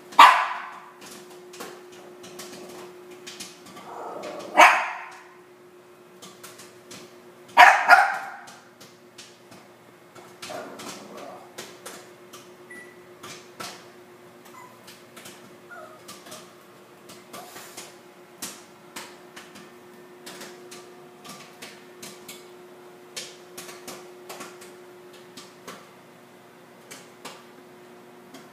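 Small dog barking: three sharp, loud barks in the first eight seconds, then a fainter bark around ten seconds in. Faint, irregular clicks and a steady low hum continue underneath.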